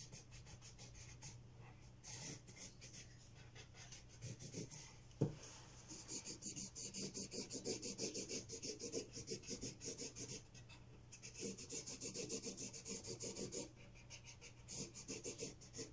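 Felt-tip marker scribbling on paper, quick back-and-forth colouring strokes that come in runs with short pauses between. A single light knock about five seconds in.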